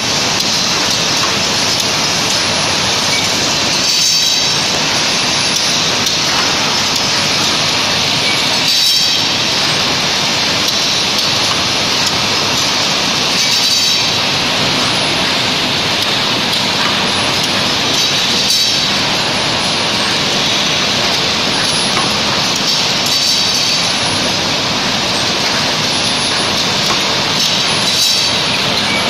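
Sealing machine on a packaging line running steadily, a loud continuous mechanical noise. A brief, sharper noise recurs about every five seconds with each machine cycle.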